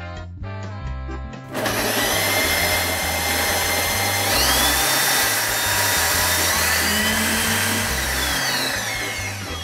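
Vorwerk Thermomix food processor milling granulated sugar into icing sugar: the blade motor starts about a second and a half in with a loud gritty whirr, its whine steps up in pitch about four seconds in as the speed is raised, and it winds down and stops near the end. Background music plays underneath.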